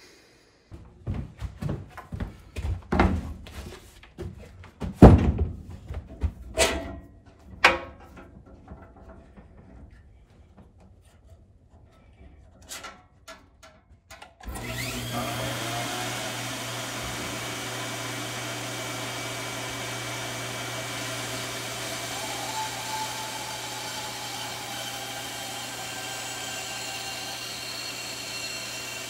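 Scattered knocks and clunks of wood and tools being handled. About halfway through, a Center band saw switches on suddenly and runs steadily with a constant low motor hum as a plywood board is fed to its blade.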